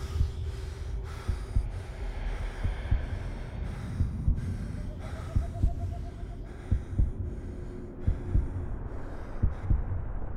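Heartbeat sound effect: dull low double thumps that settle into a regular lub-dub about every second and a half, over a low droning score with a wavering tone near the middle.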